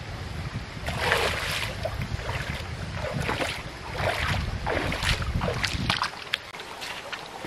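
Bare feet wading through a shallow stream, a splash with each step about a second apart, over wind buffeting the microphone. Near the end the splashing stops and a few light clicks remain over the trickle of the stream.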